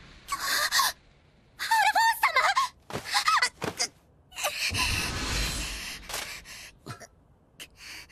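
A girl's pained gasps and strained cries, in a string of short breathy bursts, some with a high wavering pitch.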